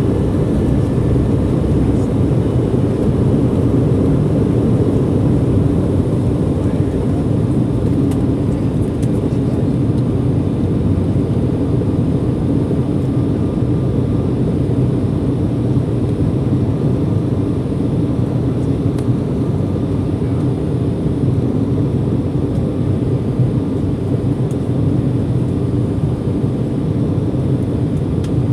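Steady engine and airflow rumble heard inside the cabin of an Embraer ERJ-175 regional jet in flight, its two GE CF34-8E turbofans running.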